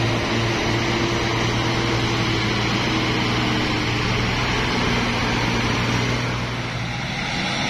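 Diesel engine of a loaded Hino truck running steadily as it drives past, a low even hum over a haze of road noise.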